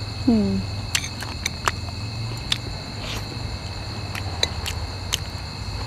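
Fork and skewer clicking against a plate during eating, a handful of scattered sharp clicks, over a steady high insect drone. Near the start a brief falling 'mm' from the diner is the loudest sound.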